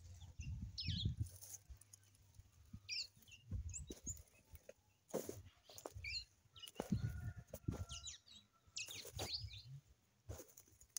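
Small birds chirping now and then in short calls, over irregular low rumbling bumps and a few sharp clicks.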